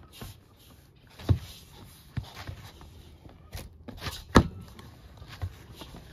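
Dough being kneaded by hand in a large stainless steel bowl: irregular dull thumps and knocks of the dough and the bowl, loudest about a second in and again past four seconds.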